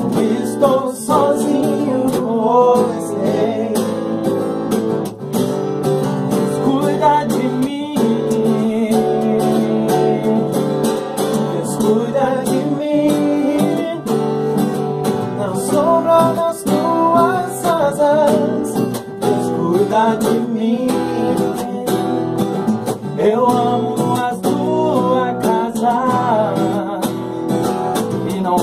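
A man singing a slow gospel song over an acoustic guitar and an acoustic bass guitar.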